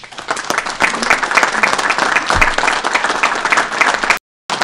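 Applause: many hands clapping, building up just after the start and keeping on densely, with a brief gap of silence near the end.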